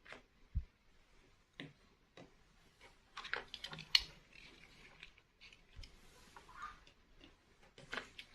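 Small toy pieces being handled: irregular clicks and taps, with a soft thud about half a second in, a quick run of clicks around the middle and a brief rustle after it.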